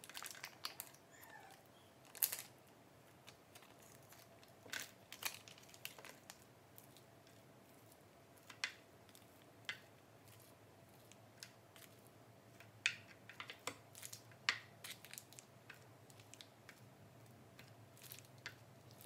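Scattered light plastic clicks and scrapes from a clear plastic scoop and tub, as raw minced meat is scooped into a plastic slow-feeder dog bowl, over a faint steady hum.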